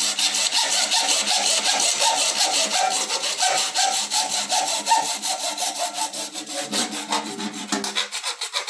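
Hacksaw cutting through a 3/4-inch PVC pipe in quick, even back-and-forth strokes.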